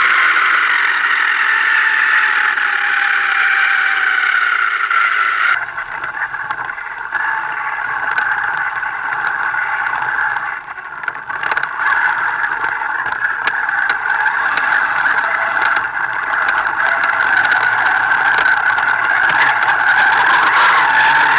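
Thunder Tiger RC buggy's motor whining as the car runs, its pitch sliding with speed through corners, with rattling from the chassis, heard from a camera mounted on the car. The sound changes abruptly about five seconds in.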